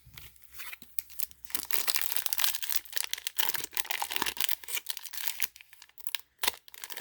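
Foil booster pack wrapper crinkling and tearing as it is opened by hand: dense, crackly rustling, with a couple of short pauses near the end.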